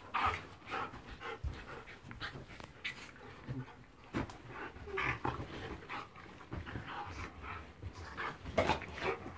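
A Siberian Husky and a Shiba Inu puppy play-fighting on a bed: panting and scuffling on the bedding in irregular bursts, the loudest just before the end.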